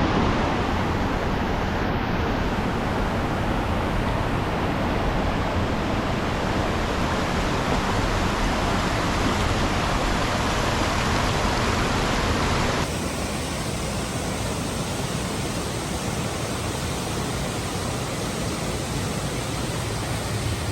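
Steady roar of rushing water, a constant even hiss with no pattern. About two-thirds of the way through it cuts abruptly to a slightly quieter, thinner roar.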